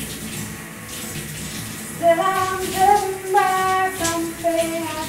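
Shower water running as a steady hiss. From about two seconds in, a woman sings over it in long held notes.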